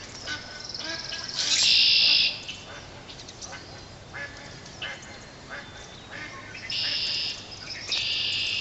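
Birds calling: three loud, harsh calls each under a second long, about a second and a half in, near seven seconds and again near the end, with fainter short calls in between.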